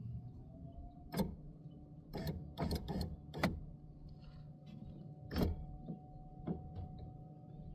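Irregular clicks and knocks of the window glass and window regulator parts being handled and seated inside a car door, about nine in all.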